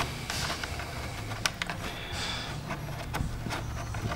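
Light, irregular metal clicks and taps of a 10 mm wrench working a nut off a small wire terminal, over a low steady hum.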